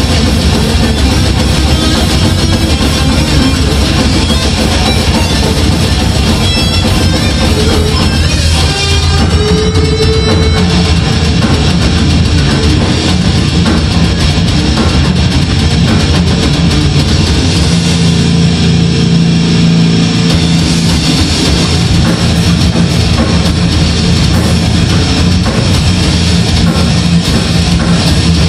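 Death metal band playing live: distorted electric guitars and a drum kit. A short run of high guitar notes climbs a few seconds in.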